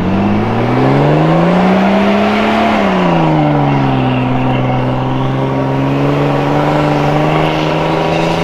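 A 4x4 engine revs up under load for about two and a half seconds, drops back, then runs at a steady, lower pitch. This is a vehicle pulling on a tow strap through deep sand.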